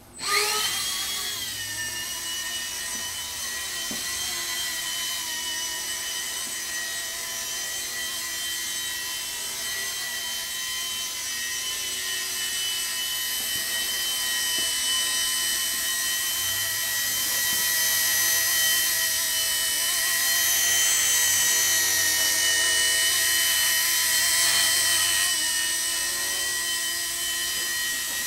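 E-flite Blade mSR micro RC helicopter starting up abruptly, then its electric motors and rotor whining steadily in flight, a little louder in the second half.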